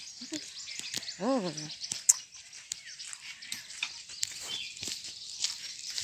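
Many birds chirping and calling. About a second in, one short call rises and falls in pitch, and a sharp click comes just after two seconds in.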